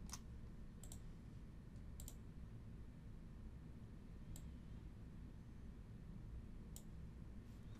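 Faint computer mouse clicks, about five scattered over several seconds, over a low steady room hum.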